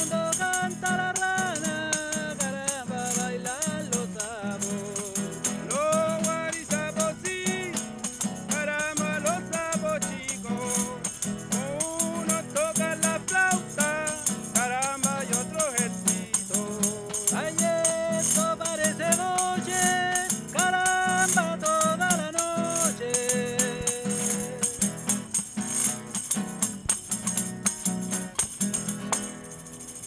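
A cueca song: men singing to a strummed acoustic guitar and a jingling hand tambourine (pandero) keeping the rhythm. The song ends near the end.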